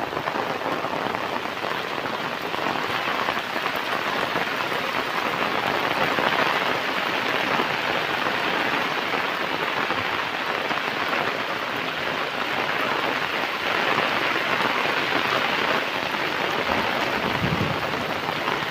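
Steady rain falling, an even hiss that holds at much the same level throughout.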